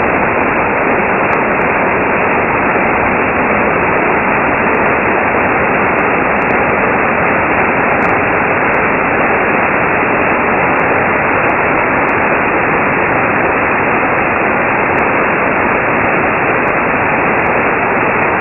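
Mountain stream cascading over rock slabs: a loud, steady rush of white water.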